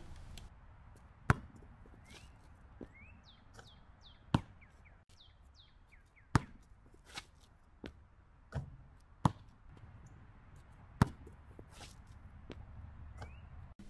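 A basketball bouncing on an outdoor concrete court and slapping into the hands: sharp single impacts one to three seconds apart, some faint and some loud, the loudest about eleven seconds in.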